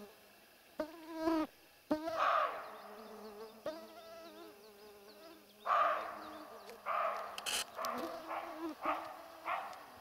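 Mosquitoes and flies buzzing with a wavering whine, while a Siberian roe deer buck gives several short, harsh alarm barks.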